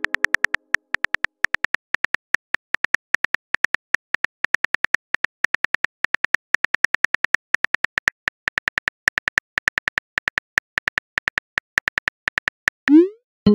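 Phone keyboard key-click sound effects as a text message is typed: a fast, even run of short clicks, about six a second with brief pauses. Near the end a short rising whoosh sounds as the message is sent.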